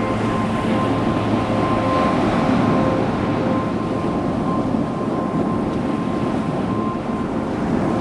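Steady rushing noise of wind on the microphone and ocean surf, with faint steady tones running through it.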